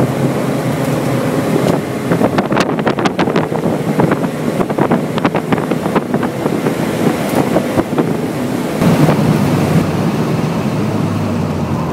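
Mercedes-Benz 180E four-cylinder engine running hard on track, heard from inside the stripped cabin with heavy road and wind noise. A run of sharp clicks and rattles comes in from about two to six seconds in. Near the end the engine note and wind shift as the sound changes to a camera outside the car.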